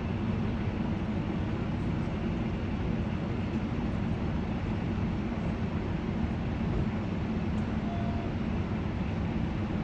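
Steady low rumble of a running vehicle, an even hum with no change in speed.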